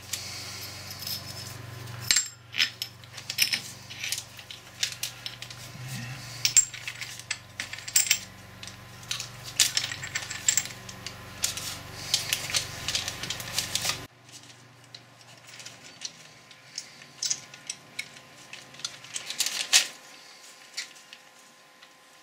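Gears and small steel parts of a Boxford lathe apron clinking and clicking against each other and the housing as they are fitted by hand: many short, sharp metallic clicks and taps. A low steady hum underneath stops suddenly about fourteen seconds in.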